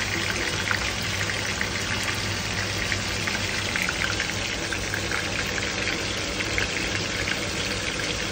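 Marinated pork chop frying in hot oil in a frying pan: a steady sizzle of many small crackling pops.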